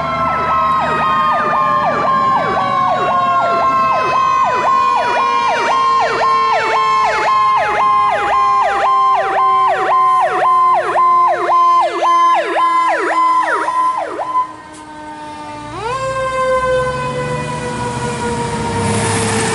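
Sirens of a fire engine and a ladder truck responding: an electronic siren yelping at about two sweeps a second, over a second siren's wail that slowly falls in pitch. The yelp stops about 14 seconds in. About two seconds later the wail swings quickly back up and again falls slowly, with heavy truck engine noise building near the end.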